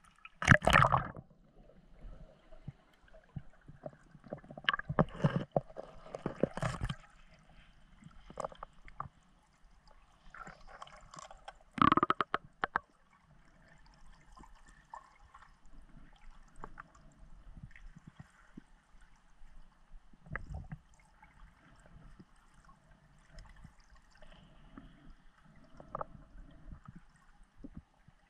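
Water splashing and gurgling around a camera at the lake surface as a spearfisher dives under, with the loudest bursts near the start, from about four to seven seconds in, and around twelve seconds in. Then the muffled sound under the water, with faint gurgles and scattered small clicks.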